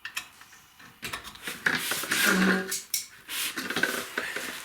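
Metal hand tools clinking and scraping in irregular knocks: a hex key being worked in a stuck rear brake caliper bolt and a metal extension tube being handled to give more leverage.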